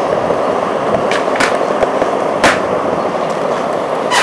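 Skateboard wheels rolling steadily over concrete, with a few sharp clacks along the way.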